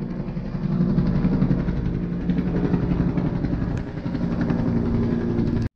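Helicopter flying overhead: a steady, loud drone of engine and beating rotor. It cuts off suddenly near the end.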